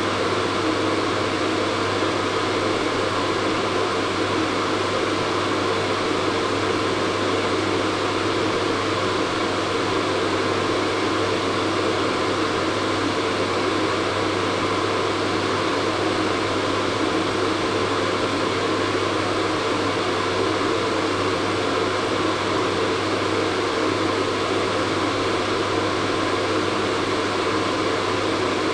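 Hair dryer running steadily: an even blowing whoosh over a constant motor hum, with no change in pitch or level.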